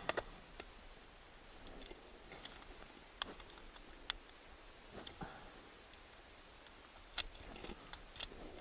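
A few scattered light clicks and taps over a low background, with a quick cluster of clicks at the start and single ones every second or few.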